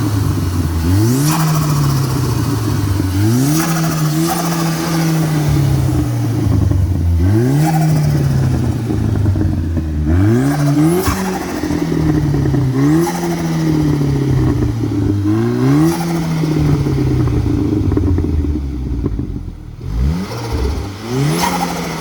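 Audi 2.0 TFSI four-cylinder turbo engine with an upgraded K04 turbo, revved hard about eight times. Each rev climbs quickly and falls back slowly, with turbo flutter as the throttle shuts. The flutter is compressor surge, since the car runs no blow-off valve.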